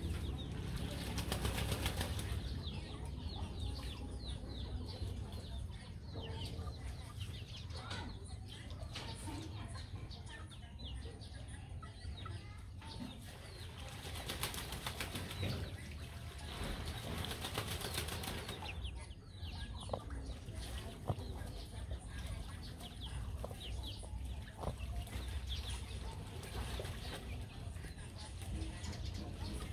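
Young chickens peeping and clucking, with many short high chirps scattered throughout. Two stretches of dense rustling noise, a short one near the start and a longer one about halfway, over a steady low rumble.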